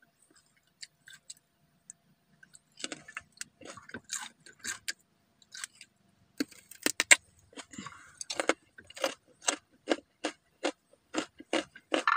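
Crisp crunching of raw vegetables being chewed close to the microphone, starting a few seconds in and settling into a steady rhythm of two to three crunches a second.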